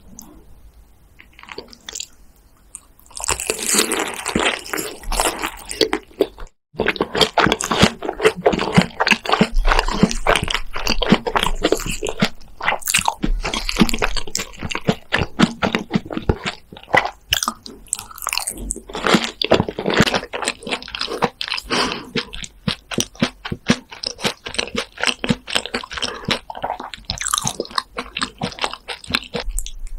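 Close-miked eating sounds: crunching and chewing of fries smothered in a thick creamy sauce, starting about three seconds in and going on densely, with a brief cut to silence a few seconds later.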